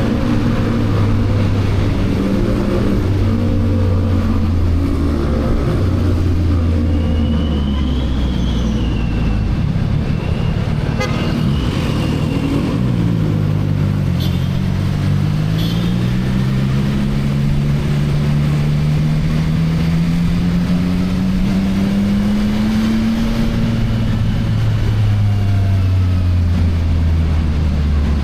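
CFMoto 675NK's three-cylinder engine through its stock exhaust while riding in traffic: it runs steadily, eases off briefly about 13 seconds in, then pulls with a long rising pitch before dropping back as it shifts up near the end.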